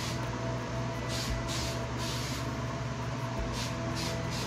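Aerosol hairspray can sprayed onto hair in several short hissing spritzes, over a steady low hum.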